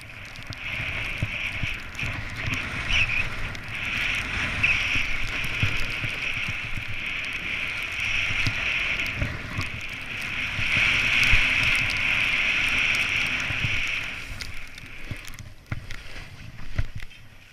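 Snowboard sliding over snow: a steady scraping hiss of the board's base and edges, with wind rumbling on the microphone. It dies away about fifteen seconds in as the board comes to a stop.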